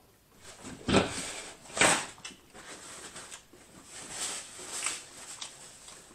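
Close-miked eating: two loud crunches about a second apart near the start, followed by softer, irregular chewing.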